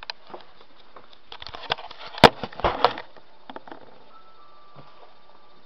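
A few knocks and clatter of the camera being handled and set down on a kitchen counter, the loudest a sharp knock a little past two seconds in.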